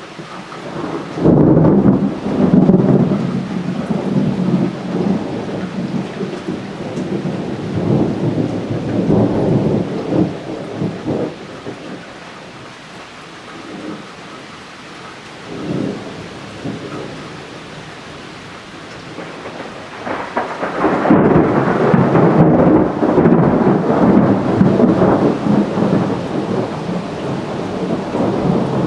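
Thunder from a nighttime thunderstorm: a long rolling rumble starting about a second in and fading after about ten seconds, then a second loud roll about twenty seconds in that is still rumbling at the end.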